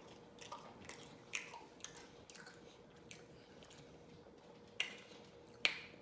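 A person chewing food with open-mouthed, wet lip-smacking: faint short smacks and clicks every half second or so, a quiet pause midway, then two sharper clicks near the end.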